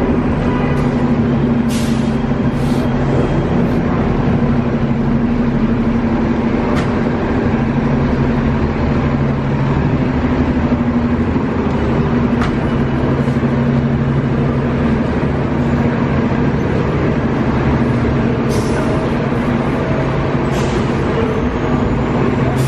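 Busy downtown street traffic: a steady rumble with a low engine hum from city buses and cars, and a few short hisses.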